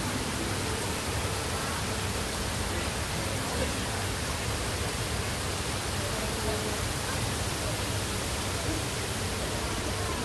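Steady, even hiss of a garden misting system spraying fine water fog among the plants.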